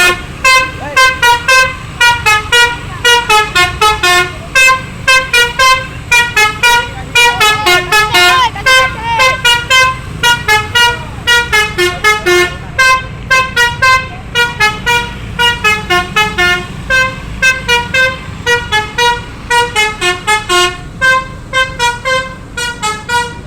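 Basuri bus horn, a multi-tone 'telolet' air horn, playing a fast melody of short, loud toots, several notes a second with hardly a break.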